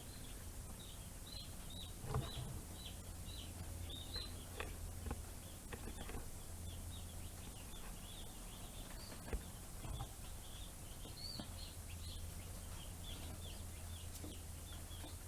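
Newly hatched meat chicks peeping continuously, many short high peeps a second overlapping one another. Under them runs a low steady hum, with a few knocks, the sharpest about nine seconds in.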